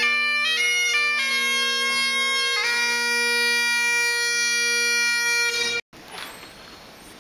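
Bagpipes playing a slow tune over steady drones. The melody settles on a long held note, which cuts off suddenly near the end.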